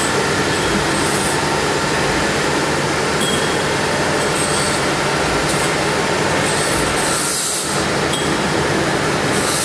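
A machine running steadily with a low rumble and a hum, with a brief hiss now and then.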